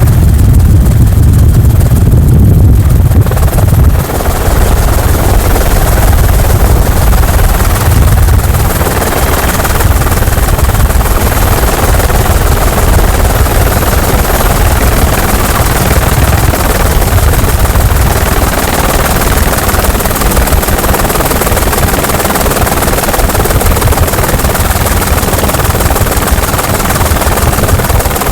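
Helicopter rotor and engine noise heard from aboard the helicopter: a loud, steady low chop. About four seconds in, a rushing hiss rises across the upper range and continues alongside it.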